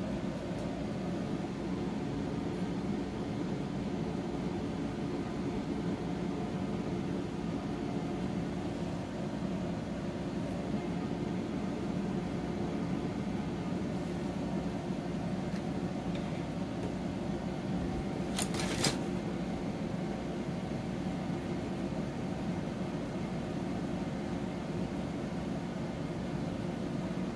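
Steady low mechanical hum of a running machine, with a single short scrape about eighteen seconds in.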